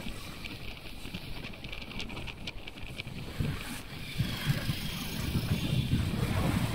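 Wind rumbling on the microphone of a moving motorcycle, over the sound of its engine and the street traffic around it. The wind noise grows a little louder about four seconds in.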